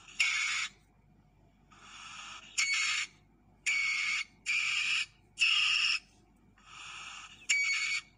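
Asian palm civet (musang pandan) giving a series of raspy, hissing screeches: about eight calls of roughly half a second each, some louder and some softer.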